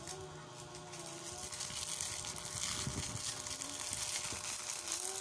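Rustling and small clicks of a tripod's plastic parts and wrapping being handled, with a faint voice in the background.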